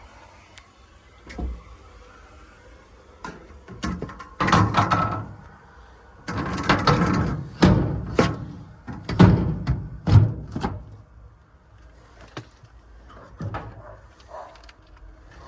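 A run of loud knocks and clattering bangs, bunched between about four and eleven seconds in, like a door or metal panels being handled and shut.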